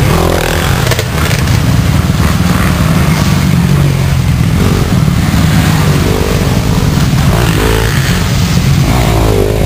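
Several mini dirt bikes racing past close by one after another, each engine revving up and then falling in pitch as it goes by, over the steady drone of more bikes coming behind.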